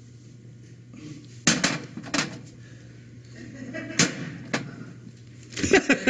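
A few sharp knocks, about a second and a half in and again around four seconds, over a low steady hum. A man laughs near the end.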